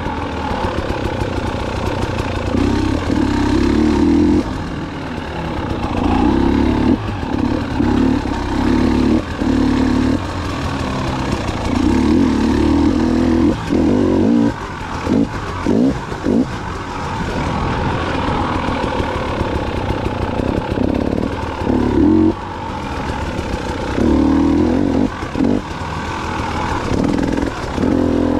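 2019 KTM 300 XC-W's two-stroke engine revving up and down under changing throttle while being ridden, with a run of short, quick throttle blips about halfway through.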